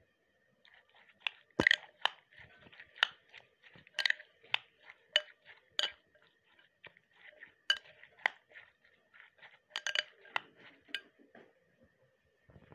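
Metal spoon stirring boiled black chickpeas in a glass bowl, with irregular clinks and scrapes against the glass as the chickpeas are turned over.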